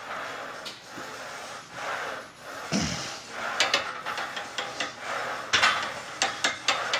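Hard, rhythmic breathing through a set of Smith machine incline bench presses, with sharp clicks and clanks from the loaded bar and its plates, coming in clusters in the second half, and one dull thump.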